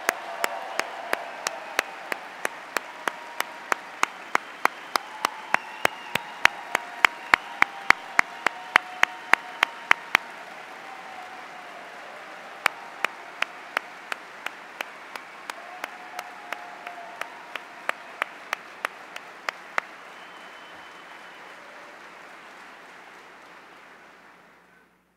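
Large crowd applauding, with one close clapper's sharp claps standing out at a steady few a second; the close claps stop for a couple of seconds about ten seconds in, resume, then end, and the applause fades out near the end.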